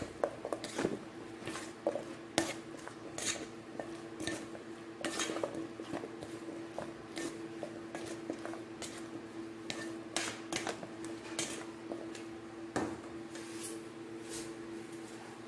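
Salad being tossed in a stainless steel bowl: irregular clicks and scrapes of a utensil against the metal bowl, over a steady hum.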